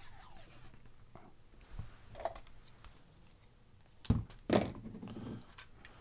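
Soft handling noises from black electrical tape being wrapped around a small plastic electronics assembly on a workbench: a few light knocks and taps, with the loudest thunk about four seconds in.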